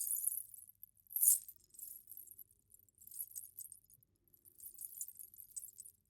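Indian ghunghroo bells jingling. There is a bright clash of bells about a second in, then three softer runs of light jingling.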